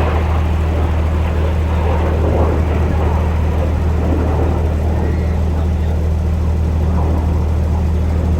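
Steady low rumble of distant jet aircraft, holding constant with a haze of hiss above it.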